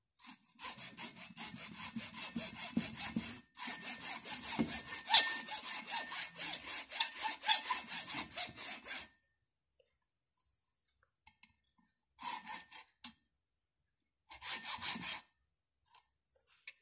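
Hacksaw cutting into the plastic case of a motorcycle battery: rapid back-and-forth strokes for about eight seconds with a brief break partway, then a pause and two short bursts of sawing near the end.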